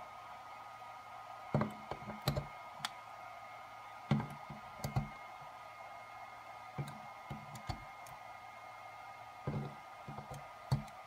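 AA nickel-metal hydride batteries being pushed one after another into the spring-contact slots of a Powerex MH-C980 charger, making a series of sharp clicks and knocks a second or two apart.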